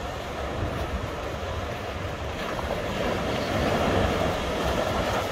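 Ocean surf washing onto a rocky beach, swelling louder past the middle as a wave breaks, with wind rumbling on the microphone.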